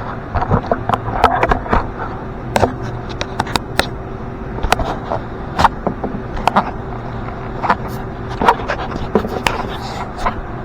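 Irregular clicks, knocks and scrapes of hands and tools handling parts, a dozen or more sharp taps spread unevenly through, over a steady low hum.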